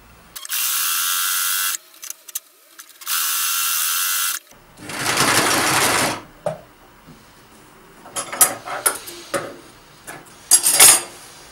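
Two steady hisses, each about a second and a half long, then a domestic sewing machine runs for a short seam of about a second and a half. Near the end come a few sharp snips of scissors cutting the thread.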